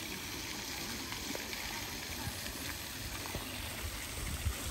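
Fountain jet splashing steadily into a stone basin, a continuous rush of falling water. A brief low thump near the end.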